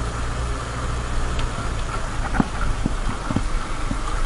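Motorcycle engine running steadily while riding over a rough gravel road, with several sharp knocks about halfway through as the bike jolts over stones.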